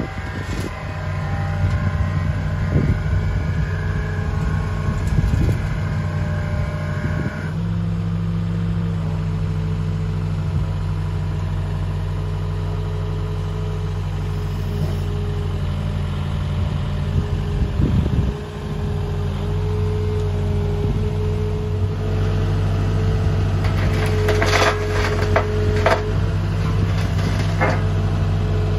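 Cat 306 CR mini excavator's diesel engine running steadily while its hydraulics work the arm and tilting bucket. A higher whine sits over the engine and changes pitch about a third of the way in. A few sharp clicks and knocks come near the end.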